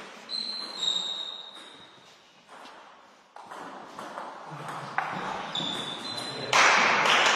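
Table tennis rally: the ball clicking back and forth off the bats and table. A louder burst of noise comes in near the end.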